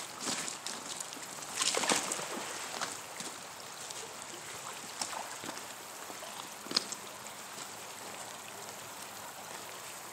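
A heavy 4,200 lb pull neodymium magnet on a rope is thrown into a shallow creek and lands with a splash about two seconds in. Later comes a steady low background of water with one sharp click about two-thirds of the way through.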